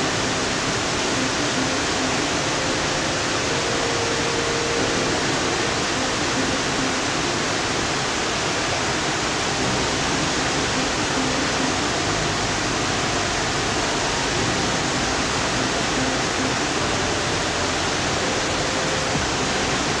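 Waterfall: the steady, even rush of falling water.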